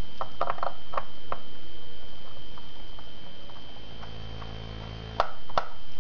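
Small clicks and ticks of a screwdriver turning out the screws of a laptop's memory compartment cover, a cluster in the first second and a half and a couple more sharp clicks near the end, over a steady high whine.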